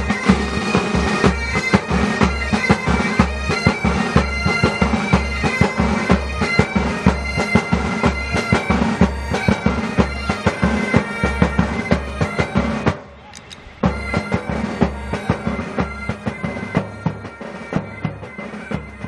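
Bagpipes playing a tune over their steady drone, with regular drum beats under it. The music breaks off for about a second some 13 seconds in, then resumes and gradually fades.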